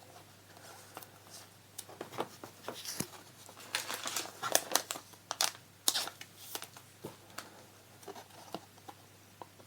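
Foil booster pack wrapper crinkling and trading cards being handled, a run of light crackles and clicks that is busiest in the middle.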